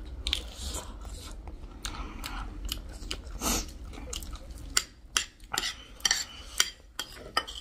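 Close-up chewing of gilo chatpate, a wet spiced puffed-rice snack, with metal spoons clinking and scraping on ceramic plates. The clinks come thick and sharp in the second half.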